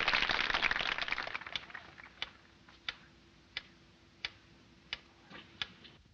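A conductor's baton tapping on a wooden music stand, seven sharp evenly spaced raps about two-thirds of a second apart, calling the orchestra to attention. Before them, a loud noisy hubbub dies away over the first two seconds.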